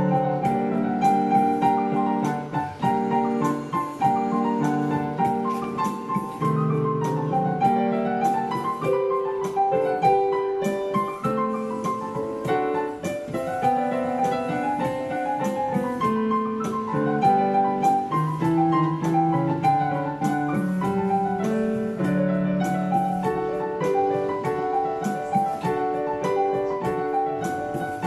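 Digital piano played with both hands: an unbroken melody in the upper-middle range over lower chords and held notes.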